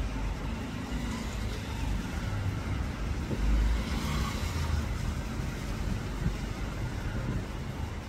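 Steady low rumble of outdoor background noise, with a louder swell about three and a half seconds in.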